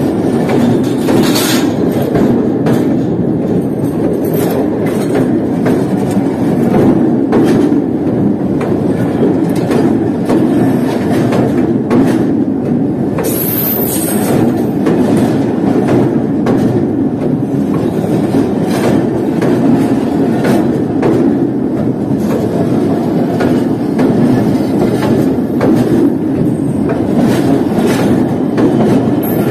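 Pakistan Railways passenger coaches rolling directly over the camera: a loud, steady rumble of steel wheels on the rails, with repeated clacks as the wheelsets pass. A brief high screech comes about thirteen seconds in.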